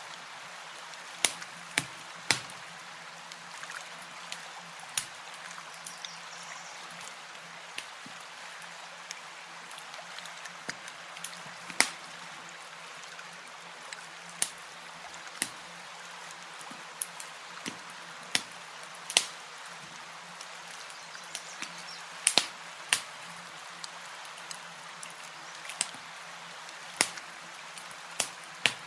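Campfire crackling: sharp, irregular pops and snaps, a few every couple of seconds, over a steady soft hiss.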